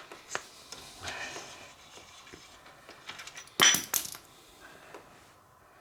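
Small metal tools clinking: scattered light clicks, then a loud ringing metallic clatter about three and a half seconds in.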